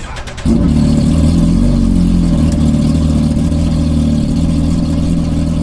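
An engine catches suddenly about half a second in and then idles loudly and steadily.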